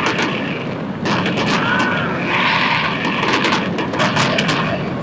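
Fireworks bursting overhead: a rapid run of sharp bangs and crackling that swells and fades in waves.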